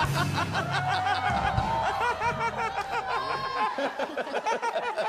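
Several people laughing together, with scattered talk mixed in.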